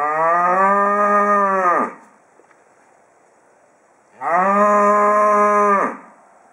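A cow mooing twice: two long, full moos about two seconds apart, each rising in pitch as it starts and dropping off at the end.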